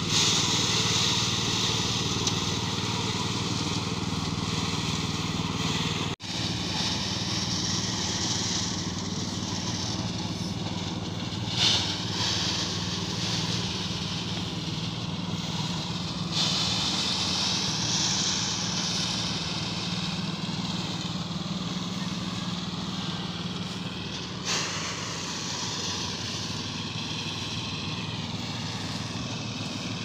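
Small engine running steadily, powering a portable rice thresher while bundles of rice stalks are fed into it, with a noisy threshing rush over the engine hum.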